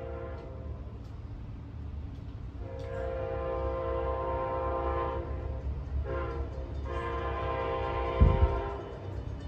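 Amtrak Silver Star locomotive horn sounding the grade-crossing signal as the train approaches: a long blast ending, then a long blast, a short one and a final long one, over the low rumble of the oncoming train. A loud low thump near the end.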